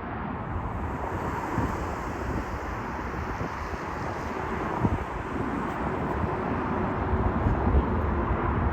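Jet noise from an Embraer E175 regional jet on approach, a steady rushing hum growing slowly louder as it nears, with wind buffeting the microphone.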